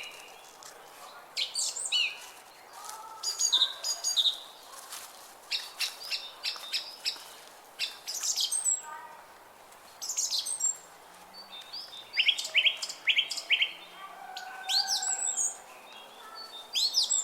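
Several songbirds singing and chirping at once: quick runs of short, high chirps and downward-sweeping notes, with a few lower whistled phrases, over a faint steady hiss of outdoor air.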